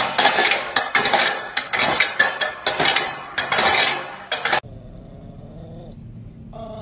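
A metal bowl dragged and knocked across brick paving by a small animal, making a rapid, loud scraping clatter. It stops abruptly about four and a half seconds in.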